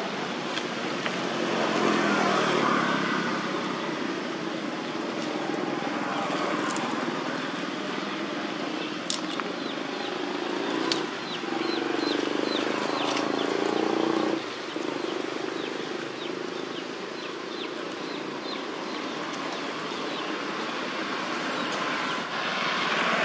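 Outdoor ambience dominated by the engine noise of passing road vehicles, swelling twice and dropping off sharply about two-thirds of the way through. A run of short, faint, high chirps sits over it in the second half.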